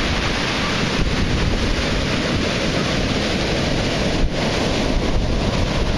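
Heavy hurricane-swell surf breaking against concrete pier pilings and washing up the beach in a steady, dense rush. Strong wind buffets the microphone.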